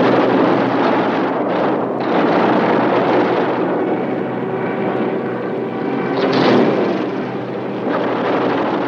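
Propeller aircraft engines droning steadily, swelling louder about six and a half seconds in.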